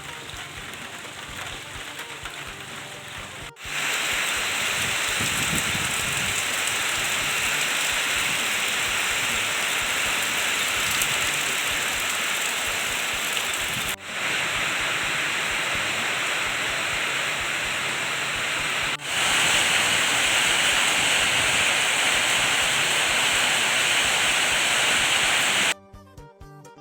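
Heavy rain pouring down in a rainstorm, a dense steady hiss. It comes in several joined stretches with abrupt changes in level at about 4, 14 and 19 seconds, and cuts off suddenly near the end.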